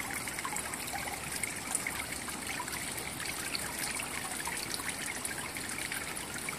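Water trickling steadily, an even splashing hiss with no let-up.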